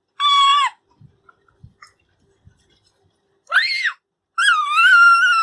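A small child's high-pitched screams: a short one at the start, another about three and a half seconds in, then a long held scream of over a second near the end.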